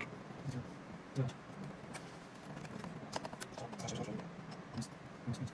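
Irregular light clicks and taps of small plastic parts being handled: wire connectors unplugged from a projector's circuit board and parts knocking against its plastic housing.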